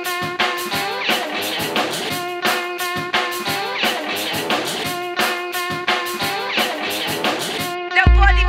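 Rock music: a guitar riff over a steady drum-kit beat, with a heavy bass coming in and the music getting louder near the end.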